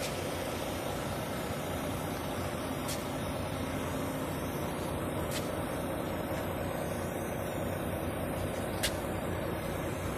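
An aerosol can of Plak cockpit spray hisses steadily as it is sprayed into the gap between a tubeless truck tyre's bead and its steel rim, filling the tyre with flammable propellant that will be lit to pop the bead onto the rim. A steady low hum runs underneath, and three sharp clicks come through.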